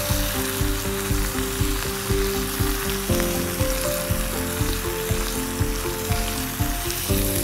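Finely chopped onion sizzling steadily in hot oil in a deep iron tava, in a tempering of mustard seeds, cumin and curry leaves. Soft background music with held notes plays underneath.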